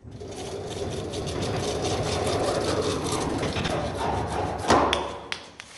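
Mini hacksaw cutting through PVC pipe with rapid back-and-forth strokes, a steady rasping. A louder stroke comes near the end, then the sawing dies away.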